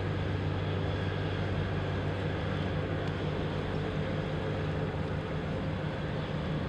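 A steady low engine drone with a constant hum and no change in pitch.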